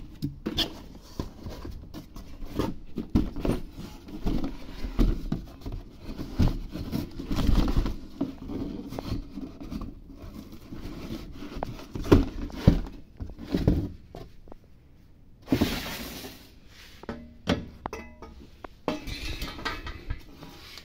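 Cardboard box and foam packing being handled as a new car AC condenser is unpacked: irregular rustling, scraping and knocks, with the sharpest knocks about twelve seconds in.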